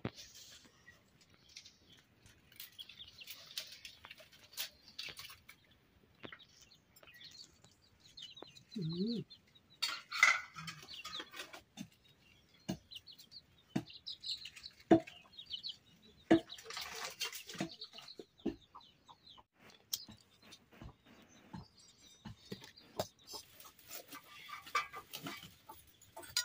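Chickens clucking and calling now and then, over scattered clinks and knocks of steel bowls and utensils.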